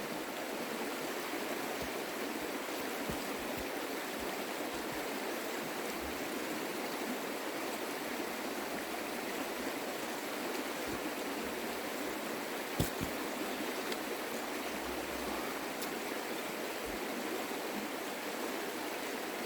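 A creek running over rocks, a steady rushing, with one brief knock about thirteen seconds in.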